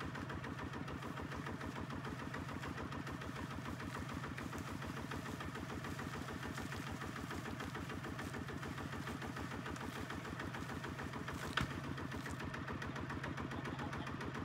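HINOTA two-wheel walking tractor's single-cylinder diesel engine running steadily with an even beat. One short sharp knock comes near the end.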